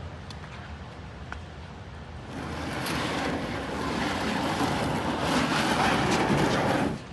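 Hiss of wheels rolling over wet pavement, growing louder from about two seconds in and cutting off suddenly near the end.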